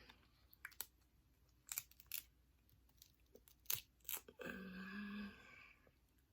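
Close-up eating of a seafood boil: crab and crawfish shells cracking and tearing apart with a few separate sharp snaps, and chewing. A short hummed voice sound comes about four and a half seconds in.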